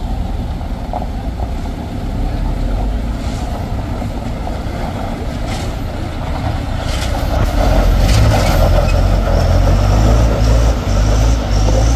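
Isuzu light truck's diesel engine working hard as the truck climbs a steep, rough dirt-and-gravel incline. The rumble gets louder about seven seconds in as the truck comes closer.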